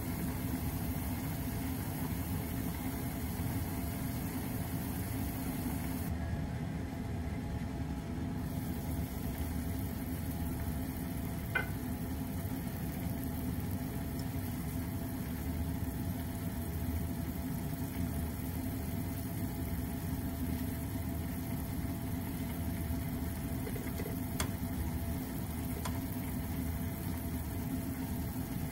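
A pot of soy-braised chicken and vegetables simmering on a gas stove: a steady low hum with bubbling, and a few faint clicks.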